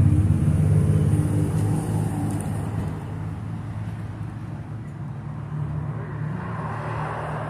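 Motor vehicle engine running with a steady low hum that fades over the first few seconds, then road traffic noise rising near the end.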